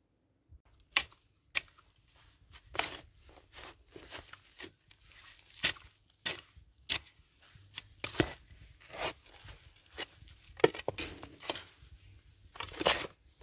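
A spade being driven into the ground and turning over soil covered with dry straw mulch: a run of irregular, sharp crunching strikes, more than a dozen, with straw and earth scraping and rustling between them. It starts about half a second in.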